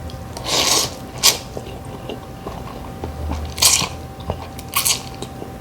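Close-up eating sounds of mussels in butter sauce being bitten and chewed: a few short, wet mouth bursts and sharp clicks.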